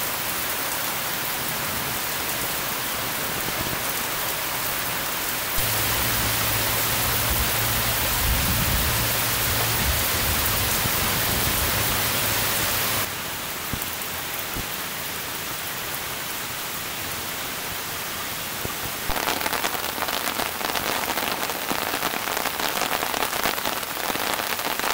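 Heavy rain falling steadily, a dense hiss of rain on leaves and ground. The sound shifts abruptly a few times, with a low hum underneath for several seconds in the middle, and a patter of separate drops near the end.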